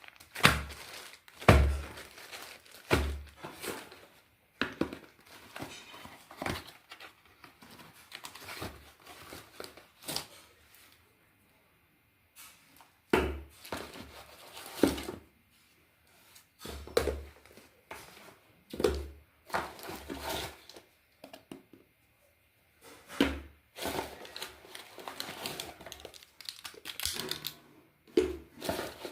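A package being unboxed by hand: irregular thumps and knocks as the box is handled, with crinkling and tearing of the wrapping between them.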